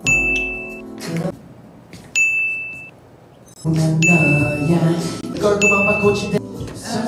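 Bell-like "ding" sound effect struck four times, about every one and a half to two seconds, each ding marking one more count on a tally of hair flips. Between the dings come short snatches of singing and music.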